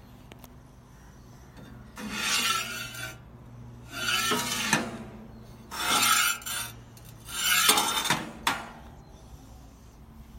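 Four rough scraping strokes, each lasting about a second, over a faint steady hum.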